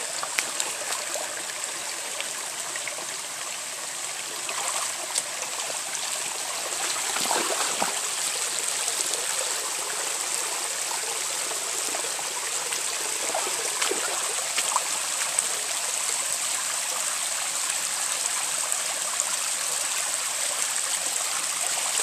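Shallow rocky creek running over small rock ledges: a steady rush of flowing water, a little louder from about seven seconds in.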